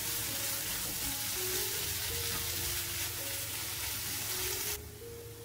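Sweet potato stems with onion and carrot sizzling in oil in a pan as they are stir-fried with a wooden spatula; the sizzle cuts off suddenly near the end. Soft background music plays throughout.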